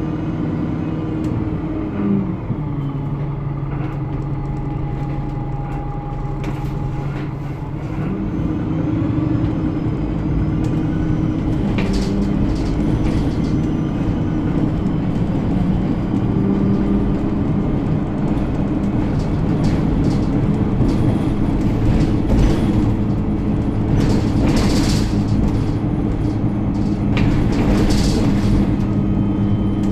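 Alexander Dennis Enviro 300 single-deck bus heard from on board while under way: a steady engine and drivetrain drone that changes pitch about eight seconds in, then builds slightly. Short squeals and rattles from the bus body come through several times in the second half.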